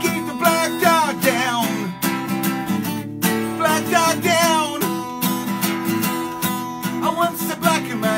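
Steel-string acoustic guitar strummed in a steady rhythm, with a man singing long wavering held notes over it.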